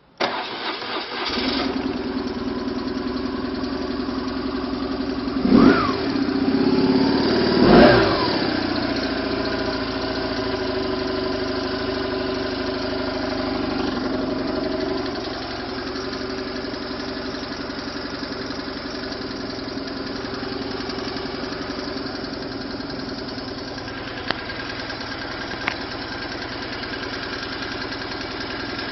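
Flat-twin (boxer) motorcycle engine starting suddenly, then revved twice a few seconds in, its pitch sweeping up and back down each time, before settling to a steady idle. The idle drops slightly about halfway through, and two short clicks come near the end.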